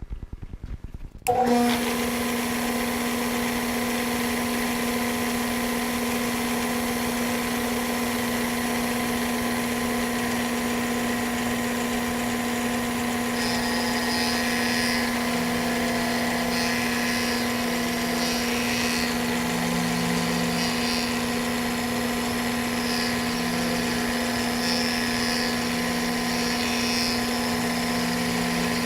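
A machine spindle turning a 1/4-inch two-flute carbide round-over bit runs loud and steady at one pitch, starting abruptly about a second in. From about halfway, uneven cutting noise comes and goes as the bit radiuses the edge of the aluminum part.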